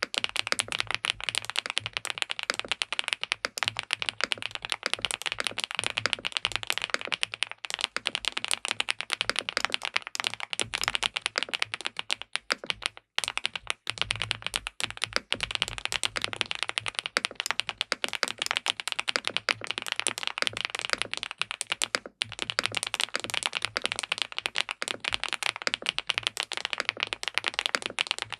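Fast, continuous typing on an SPM PL87W (Mongdol87) tenkeyless mechanical keyboard with linear switches and a polycarbonate plate. It pauses briefly about 13 seconds in and again about 22 seconds in.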